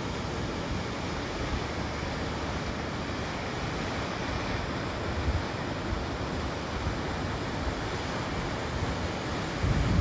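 Waterfall plunging into a pool, a steady rushing of falling water. Short low wind buffets hit the microphone about five seconds in and again near the end.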